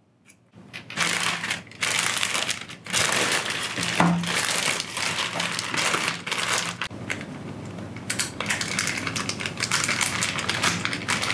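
Plastic courier mailer bag crinkling as it is handled and slit open with a hobby knife, with a sharp click about four seconds in.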